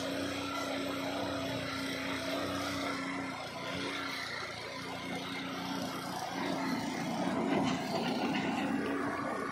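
Small petrol engine on the track-side welding unit running steadily with an even hum. About two-thirds of the way in, a louder noisy burst rises over it as the thermite charge in the crucible ignites and burns over the rail joint.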